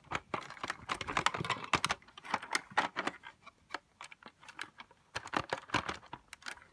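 Plastic Lego bricks clicking and rattling in the hand as a piece of a Lego safe is wiggled loose: a quick, irregular run of small clicks that thins out for about a second midway, then picks up again.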